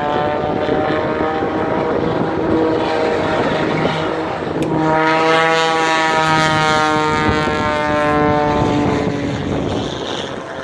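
Propeller airplane engine droning as it flies past, its tone strongest about halfway through and sinking slightly in pitch as it passes.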